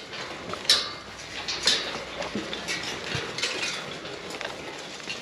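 Goats feeding at a metal fence-line feeder of pelleted feed: scattered metallic clinks and knocks as they push against the bars, with two sharper knocks about one and two seconds in.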